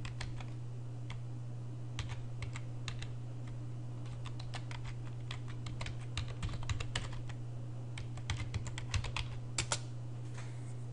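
Typing on a computer keyboard: irregular keystroke clicks, sparse at first and quicker in the second half, over a steady low hum.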